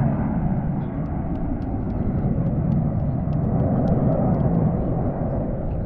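BAE Hawk T1 jets' Rolls-Royce Adour turbofans heard in a steady rumble, swelling a little around four seconds in.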